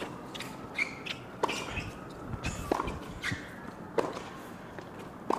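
Tennis rally: four sharp racquet-on-ball hits, about one every second and a quarter, as the players trade groundstrokes.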